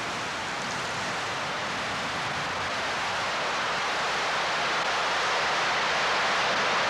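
A steady, even hiss of noise that slowly grows louder.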